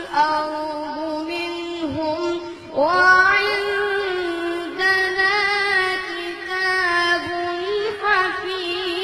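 A high male voice chanting Quranic verses in melodic tajweed recitation, holding long, wavering notes, with a new phrase sliding up about three seconds in.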